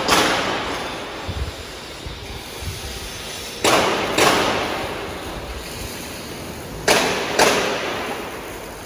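Heavy metallic bangs in pairs, half a second apart, repeating about every three to four seconds. Each bang rings out in a long echo through the large steel-clad workshop hall.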